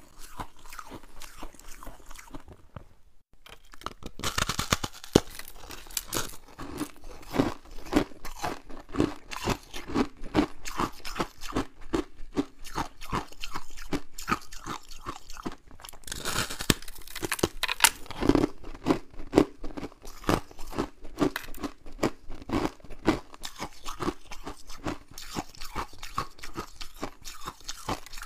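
Freezer frost being bitten and chewed, close to the mouth: crisp, crackly crunching that falls into steady chews about twice a second, with louder bites a few seconds in and again about halfway through.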